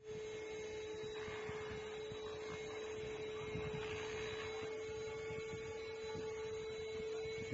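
Small electric motor of a handheld cordless dust mite vacuum cleaner running with a steady whine, over a low rumble and a faint airy hiss.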